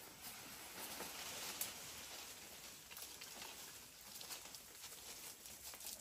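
Faint rustling and scattered light clicks from free-range goats grazing and moving through vegetation.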